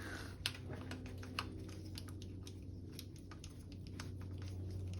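Irregular small clicks and taps of the Brompton seat post clamp's small metal parts being worked loose by hand, with two sharper clicks about half a second and a second and a half in.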